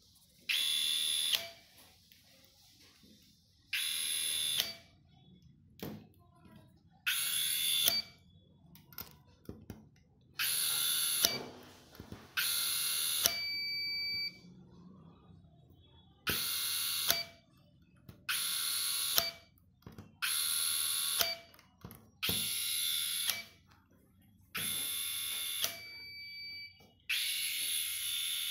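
Kilews electric screwdriver motor whining in about eleven short runs of a second or so each, driving screws one after another into a fixture. Each run stops sharply, and a brief high beep follows a few of them.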